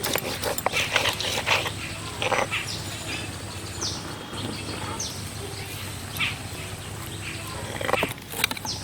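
Short high animal calls, each falling in pitch, repeated every second or so over a steady low hum, with a run of sharp clicks and knocks in the first few seconds.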